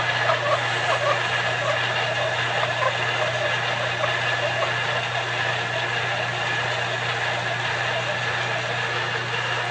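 Small benchtop lathe running steadily with a constant motor hum and whine, while a strip of 220-grit emery cloth is held against the spinning turned part to polish it.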